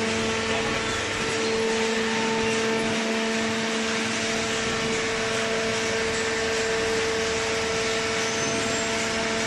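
Horizontal cardboard baler's hydraulic power unit running, a steady machine hum with a constant whine over an even hiss.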